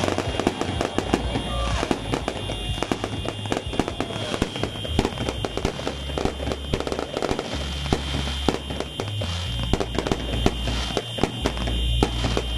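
Fireworks going off in a dense run of rapid bangs and crackles, with music and its steady bass line underneath.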